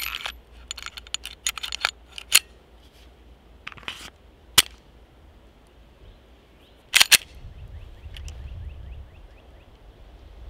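Glock 19X 9mm pistol being handled: the slide racked and other metal parts of the action clicking and clacking in a string of short, sharp clicks, with a quick double clack about seven seconds in. No shot is fired.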